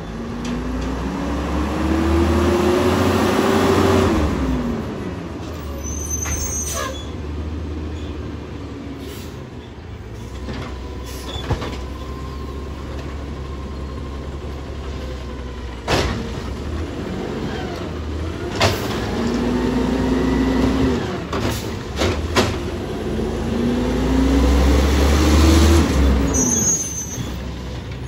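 Automated side-loader garbage truck working curbside carts: its diesel engine revs up and falls back three times, with short air-brake hisses and a few sharp clanks from the lifting arm and cart.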